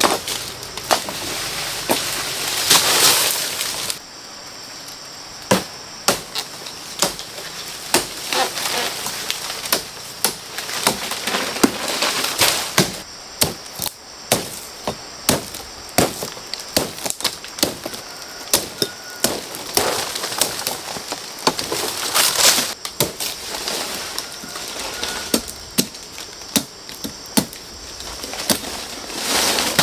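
Bamboo being chopped and split: sharp, irregular knocks and cracks, sometimes several a second, with a louder swishing rush a few times.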